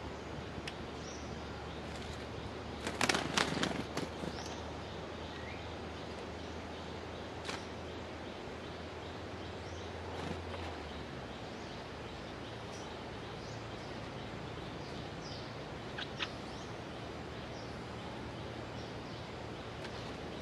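Outdoor ambience with faint, scattered short bird chirps. About three seconds in, a cluster of sharp clicks and rattles lasts about a second, and single clicks follow later.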